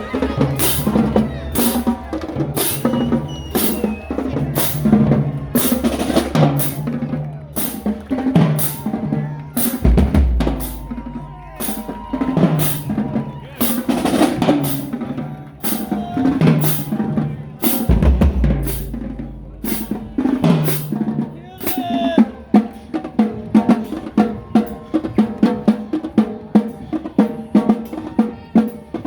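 Marching band drumline playing a cadence on snare, tenor and bass drums. Deep bass-drum booms ring out about 10 seconds and 18 seconds in, and the strokes get faster and denser from about 22 seconds on.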